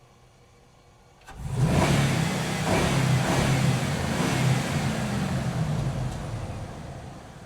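Motorcycle engine revving under throttle. It starts suddenly a little over a second in after a brief click, holds loud with a wavering pitch, then dies away toward the end.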